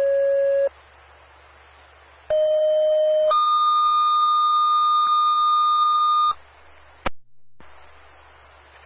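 Fire dispatch two-tone radio page alerting the station. A steady tone stops shortly in; after a short pause comes a one-second tone that steps straight up to a higher tone held about three seconds, followed by a single radio click.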